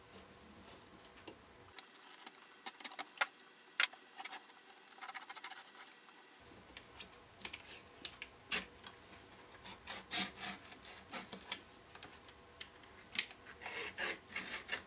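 Box-cutter blade scraping and sawing through a paperboard drink carton, in short, irregular strokes with small clicks.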